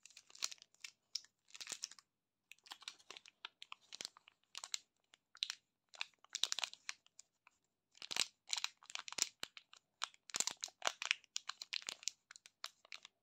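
Candy wrappers crinkling as fingers squeeze and turn them, first a glossy foil wrapper, then a black plastic sweet wrapper. The crinkling comes in short, irregular bursts with brief silent gaps between them.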